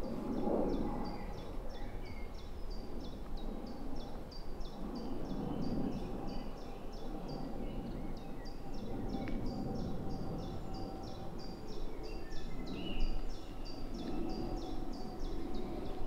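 A small songbird repeating a high, quick, stepped note pattern over and over, about four notes a second, without pause. Beneath it runs a faint steady hum.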